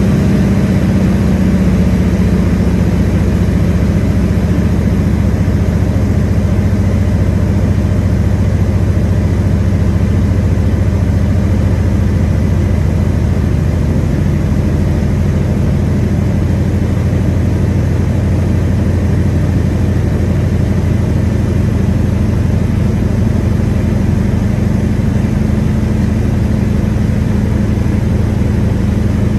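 Floatplane's engine and propeller running steadily in flight, a loud, even drone heard from inside the cabin.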